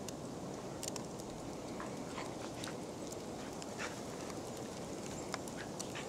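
Steady outdoor hiss with scattered light crunches and clicks, from dogs moving through deep snow.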